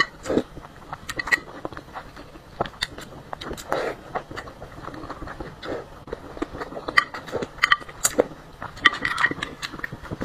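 Close-miked eating sounds: broth slurped from a spoon and food chewed, with many short wet mouth clicks and smacks. Near the end the broth is slurped straight from the rim of the bowl.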